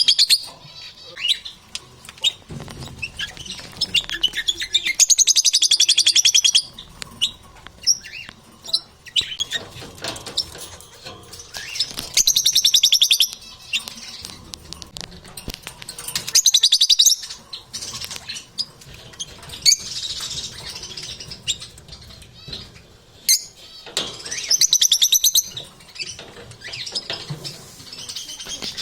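Lovebirds chattering in loud bursts of rapid, high-pitched chirps, each lasting a second or two and repeating every few seconds, with softer scattered clicks and rustling in between.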